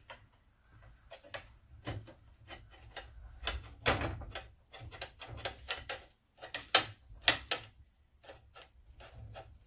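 Block of cheese being grated on a flat stainless-steel hand grater: uneven rasping strokes, a few a second, with two louder strokes about seven seconds in.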